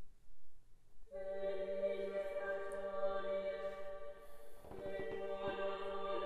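Choir singing a slow sacred hymn in long held notes, coming in about a second in.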